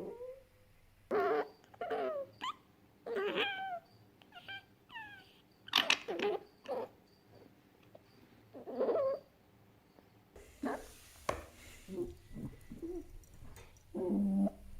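Fennec fox calling: a string of short, pitched whines and squeaks with pauses between them, several gliding down in pitch.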